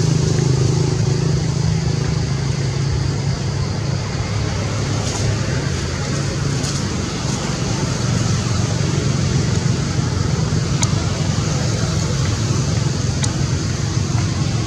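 Steady low rumble of motor traffic, with a couple of faint clicks in the second half.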